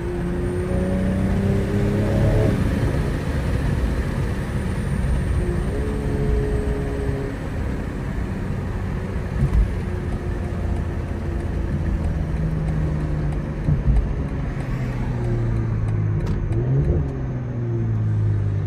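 BMW M340i's turbocharged inline-six heard from inside the cabin over steady tyre and road noise, pulling up in pitch and breaking off at upshifts in the first few seconds, then running steadily and easing off near the end. A few short knocks from the car or road are heard along the way.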